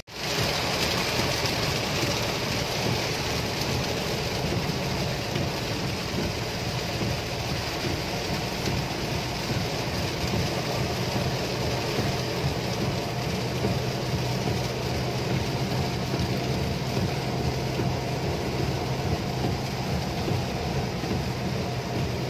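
Heavy rain beating on a moving car's roof and windscreen, heard from inside the cabin, over the steady hum of the engine and tyres on the wet road.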